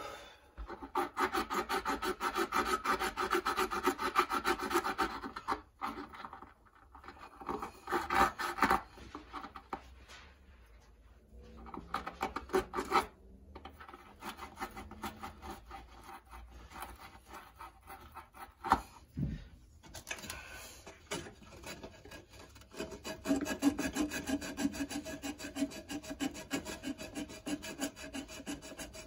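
Copper refrigerant tubing ends being scrubbed clean by hand with an abrasive, in several bouts of quick back-and-forth strokes with short pauses between: the copper is being cleaned before brazing.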